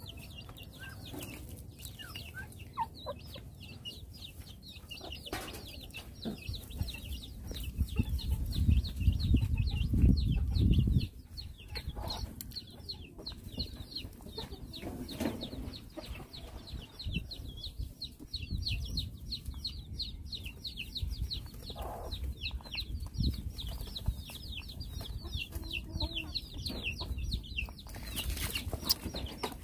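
Birds chirping: rapid, high, short calls several a second, with a few lower clucking calls here and there. A low rumble swells about eight to eleven seconds in and is the loudest part.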